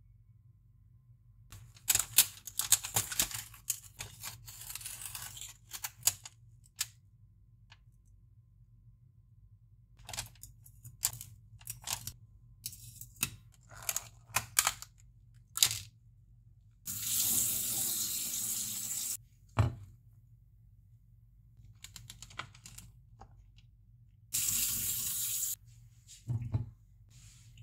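Plastic food packaging crinkling and clicking as a meringue box and a clear plastic berry clamshell are opened and handled. Then a kitchen tap runs twice for fruit rinsing, first for about two seconds, then for about a second near the end.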